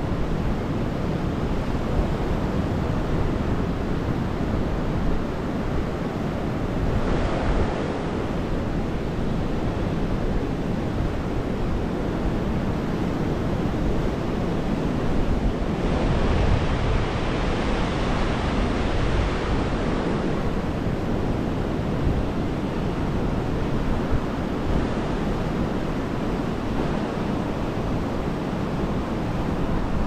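Mediterranean surf washing onto a beach, a steady rush of breaking waves. One wave breaks louder about seven seconds in, and a longer, louder one comes a little past the halfway point.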